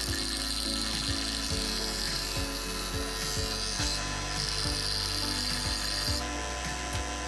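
Craftsman 20-inch variable-speed scroll saw running while cutting thin cedar, under background music with a steady beat.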